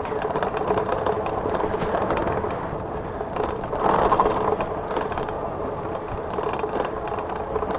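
E-bike rolling over a dry dirt and sand trail: tyres crunching and the bike's frame and parts rattling, with a steady motor whine underneath. The crunching grows louder for a moment about four seconds in.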